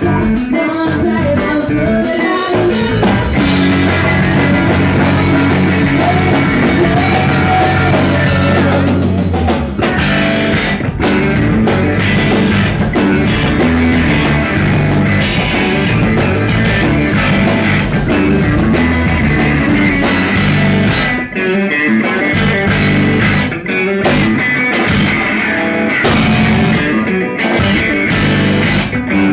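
Live math rock band playing with two electric guitars, bass guitar and drums. In the last third the band stops dead and comes back in several times, a run of sharp stop-start hits.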